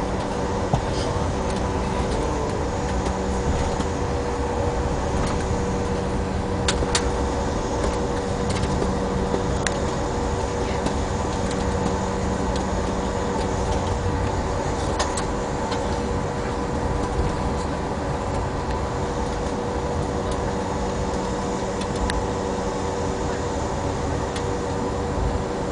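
Steady airliner cabin noise while taxiing after landing: the engines at idle and the cabin air-conditioning make a constant rushing hum with a few steady tones, and a few faint clicks come through.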